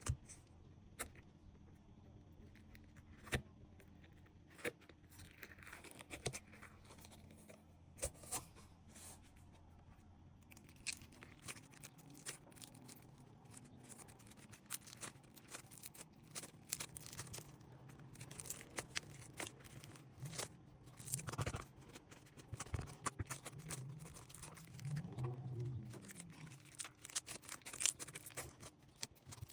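Slime being squeezed and worked by hand, giving a run of sharp crackles and pops, which grow denser and louder about halfway through.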